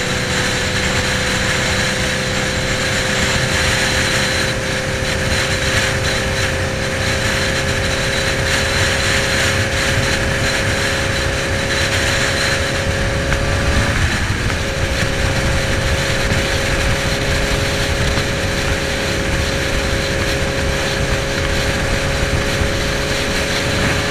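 Motorcycle engine running at highway cruising speed, with wind noise over the microphone. The steady engine note climbs slowly in pitch and breaks off briefly about fourteen seconds in.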